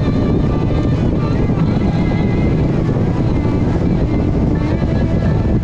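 Steady running noise of a moving vehicle, a constant low rumble with wind buffeting the microphone.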